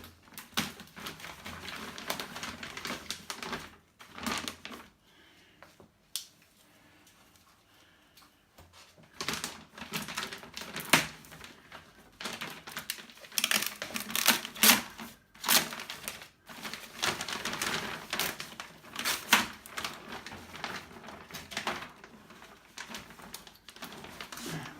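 Unpacking noises: a run of irregular clicks, knocks and rustles as the amplifier and its packaging are handled, with a quieter lull of a few seconds partway through.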